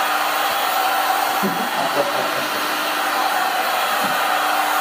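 Handheld electric heat gun running steadily, a constant rush of blown air over a low motor hum, as it heats a PVC pipe bow limb to soften it.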